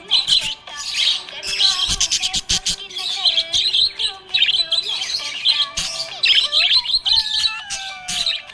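Budgerigars chirping in a rapid, continuous stream of high chirps.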